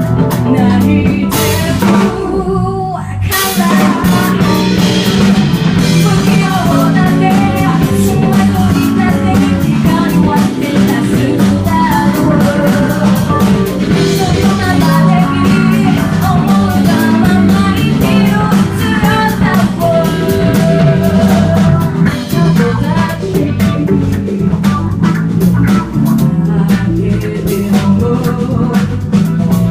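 Live band music with drum kit and guitar, and singing at times. The band stops short about two seconds in, then comes straight back in.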